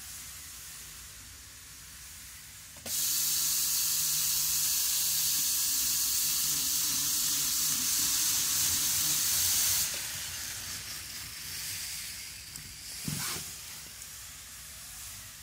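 Microace N-gauge 783 series model train running past on its track: a steady hissing whir of motor and wheels. It starts abruptly about three seconds in, is loudest as the train passes, stops about seven seconds later and then fades, with a single click near the end.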